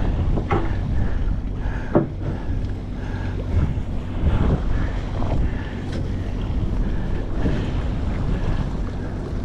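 Steady low drone of the fishing boat's engine, with wind buffeting the microphone and the sea washing, and a few short knocks.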